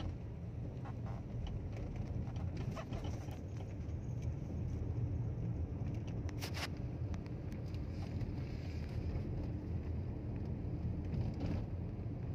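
Steady low rumble of a car's engine and tyres, heard from inside the cabin while driving slowly on a paved road, with a few faint ticks.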